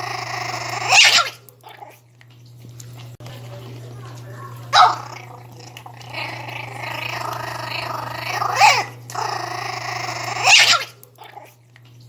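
Pinscher puppy growling continuously while guarding its food bowl, with four loud snarling barks spread through it.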